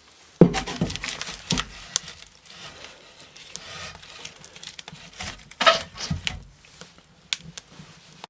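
Spruce kindling being handled and fed into a small wood fire: irregular wooden knocks and clatter of sticks, with rustling and crackling between them. The loudest knocks come about half a second in and again around five and a half to six seconds.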